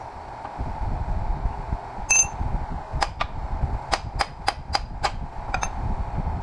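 Hammer striking the steel casing of a fluorescent light ballast to knock it off the copper windings: a ringing metallic clang about two seconds in, then a run of about nine sharp taps, several in quick succession.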